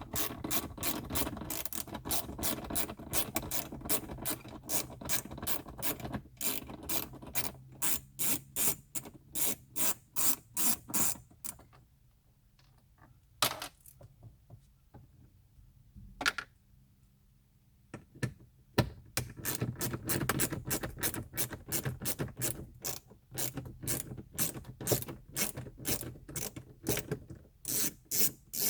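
Ratchet clicking rapidly in long runs as star-head (Torx) screws are backed out of the dashboard trim. There is a pause of several seconds in the middle, broken by two single clicks.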